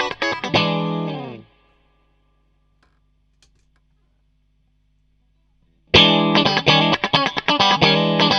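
Electric guitar played through a Klon-type overdrive pedal, a mildly driven riff. The playing stops a little over a second in with the last chord sliding down in pitch. Then comes a few seconds of faint amplifier hum before the riff starts again near the end.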